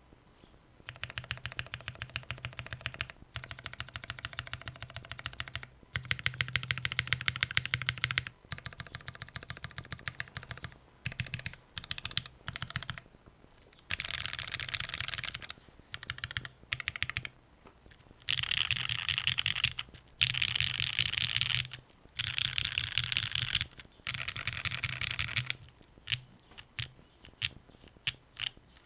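Typing on a Vertex Arc60 gasket-mount 60% keyboard with an aluminium plate, lubed and filmed Cherry MX Black Hyperglide linear switches and GMK ABS double-shot keycaps. The keys clatter in bursts of fast typing a few seconds long with short pauses between, busiest in the second half, and thin out to a few scattered key presses near the end.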